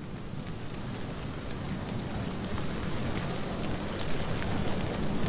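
Snowstorm wind blowing through snow-laden trees, a steady hiss that grows louder as the wind strengthens, with scattered light ticks.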